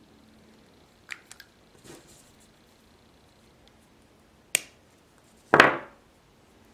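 Handling noises of small objects at a workbench: a few light clicks about a second in, a sharp tap about four and a half seconds in, and a louder brief rustling scrape just after it.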